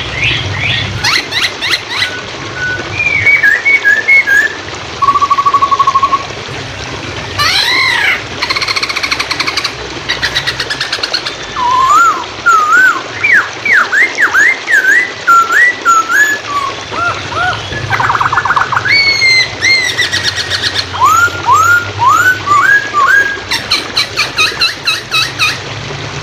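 Poksay Hongkong (hwamei) singing a loud, varied song: sliding whistled phrases, series of short up-swept notes, and several fast rattling trills. Underneath is a steady hiss of running water.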